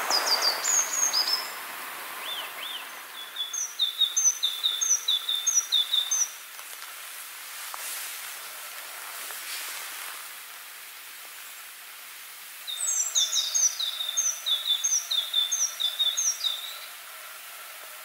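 A songbird sings twice, each song a quick run of repeated high chirping notes lasting several seconds. The second song starts about thirteen seconds in. A faint outdoor hiss lies beneath.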